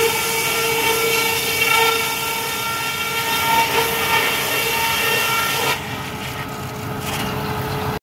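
Sawmill edger running and sawing an old two-inch board: a loud, steady machine drone with a hum of steady tones under a sawing hiss. About six seconds in, the hiss drops away and the level eases as the board clears the saws.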